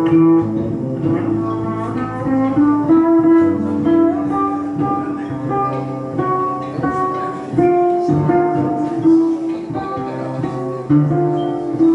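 Solo guitar playing a plucked melody with chords over held low notes, heard relayed through a video call and room speakers.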